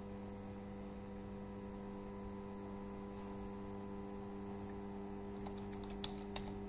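A steady low electrical hum made of several held tones. Near the end come a few soft computer-keyboard keystrokes.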